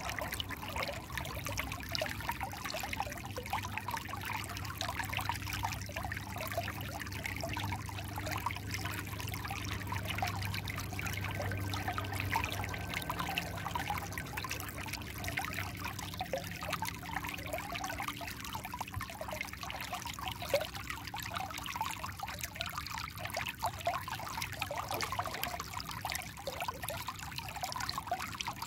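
Shallow stream of clear water flowing steadily over rounded stones and pebbles.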